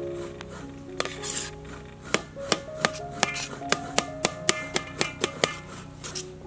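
Cleaver chopping diced dragon fruit, sharp knocks of the blade on the board about three a second starting about two seconds in, over background music.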